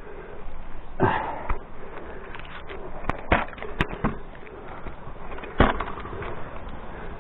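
A handful of sharp, irregular knocks and clatters over a steady rustling hiss; the loudest come about a second in and again past the middle.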